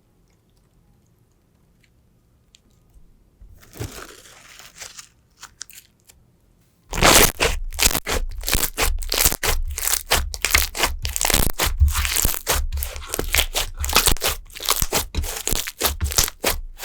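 Crunchy slime being pressed and squeezed: a soft squish about four seconds in, then from about seven seconds a dense run of loud, rapid crackles.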